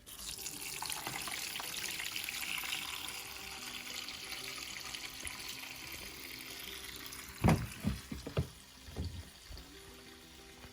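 Soapy wash water running out of a portable twin-tub washing machine's drain hose into a bucket, the flow slowly easing off. A few sharp knocks come about seven to nine seconds in.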